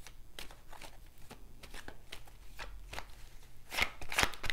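A deck of tarot cards being handled and shuffled by hand: scattered light clicks of cards flicking, quickening into a fast run of card flicks near the end.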